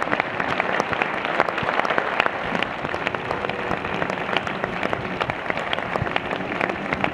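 A theatre audience applauding steadily, many hands clapping together, at the close of a performance.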